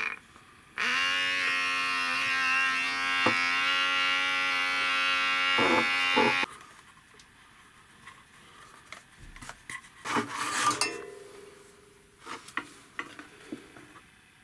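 Mini electric air pump running with a steady buzzing hum for about five seconds, switching on about a second in and cutting off abruptly. Some lighter clatter and clicks of plastic being handled follow.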